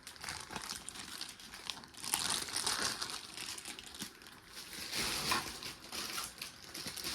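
Packaging crinkling and rustling as it is handled, in irregular swells, with a louder stretch about two seconds in and another about five seconds in.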